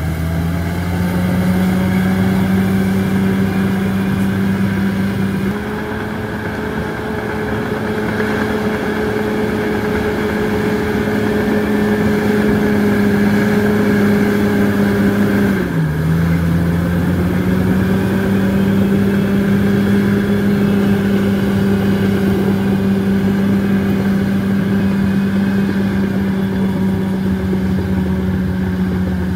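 Bulldozer's diesel engine running steadily under work. Its note sags briefly as the machine takes load, at the start and again a little past halfway, then picks back up.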